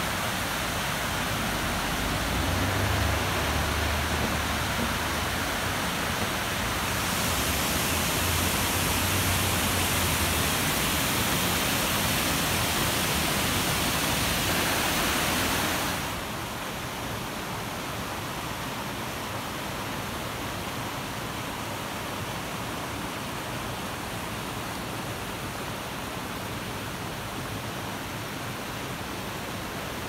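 Water rushing steadily down a waterfall partly iced over in winter. About halfway through, the sound drops to the quieter, steady rush of a rocky creek.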